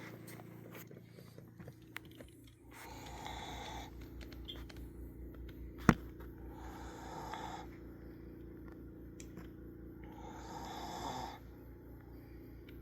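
Snoring: three slow snores, each about a second long and coming roughly every three and a half seconds, over a steady low hum. A single sharp click just before six seconds in is the loudest sound.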